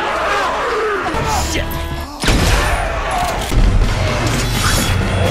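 Action-film soundtrack: music under wavering shrieks, then a sudden loud crashing boom about two seconds in, followed by a heavy low rumble.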